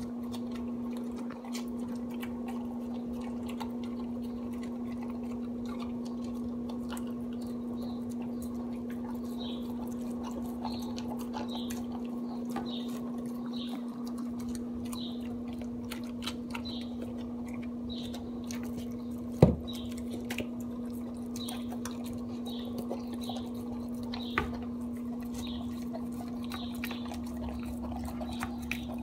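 A Basenji–Pharaoh Hound mix eating soft, oily raw food from a stainless steel bowl: a stream of wet chewing, licking and smacking, with a sharp knock about two-thirds of the way through. A steady low hum runs underneath.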